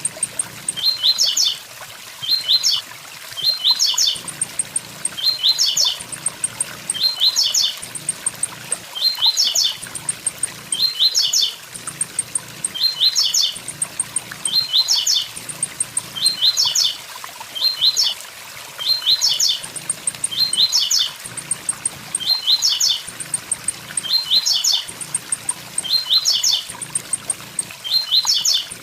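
Blue-black grassquit (tiziu) singing its short 'tui tui zel zel' phrase over and over, about once a second, over the steady rush of a waterfall.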